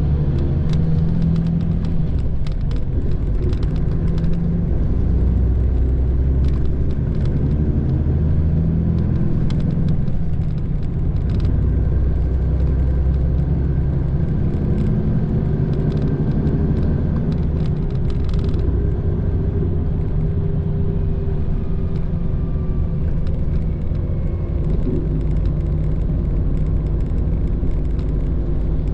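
Steady low rumble of diesel engine and road noise heard from inside a Mitsubishi Fuso Aero Ace coach under way, with scattered light clicks through the first two-thirds.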